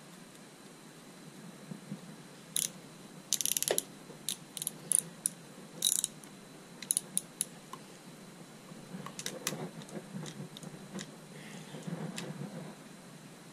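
Sharp metallic clicks from a hand ratchet tightening a bolt at a motorcycle handlebar lever mount: a fast run of clicks, then several single clicks. Softer handling and rubbing of metal parts follow near the end.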